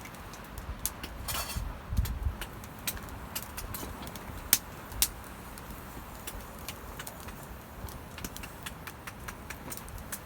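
Burning twigs in a small fire crackling with irregular sharp pops, over a low steady rumble.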